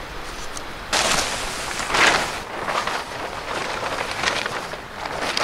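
Large plastic groundsheet tarp rustling and crinkling as it is lifted, dragged across the grass and folded, in loud irregular bursts starting about a second in, loudest around two seconds in.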